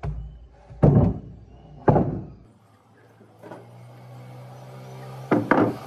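Heavy rough-sawn wooden planks knocking as they are set down and shifted on a wooden tabletop: loud separate thunks about a second apart, then a quick double knock near the end. A low steady hum comes in about halfway through.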